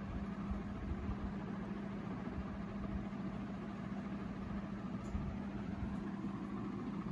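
A steady mechanical hum with an even hiss and low rumble underneath, unchanging throughout.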